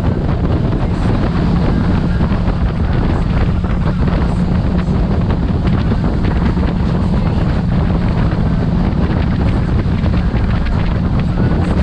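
Wind buffeting the microphone over the steady drone of a speedboat's engines running at high speed, with the rush of spray thrown up by the hull.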